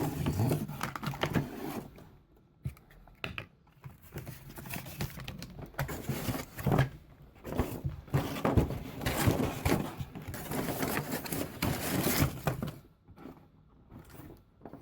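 Toy packaging being handled and opened: irregular bursts of crinkling, rustling and scraping of cardboard and plastic, with short pauses.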